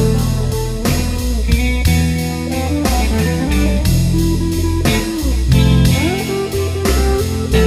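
Rock band playing an instrumental passage: a lead electric guitar line that bends and slides between notes, over bass guitar and drums.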